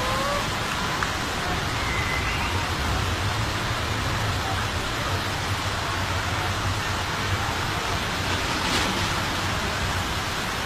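Steady hiss of rain and rushing floodwater running through a flooded street, with a low hum in the middle.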